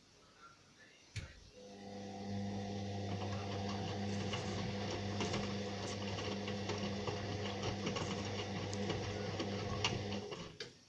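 Indesit washing machine: a click, then a motor starts and runs for about nine seconds with a steady hum and a busy rattle, then stops near the end with another click.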